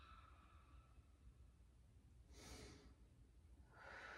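Near silence with a person's soft breathing: one faint breath about two and a half seconds in, and another starting near the end.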